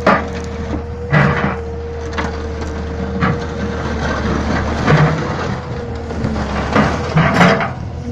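Heavy excavator diesel engine running steadily, with a series of irregular sharp crunches and cracks over it, about one every second or two.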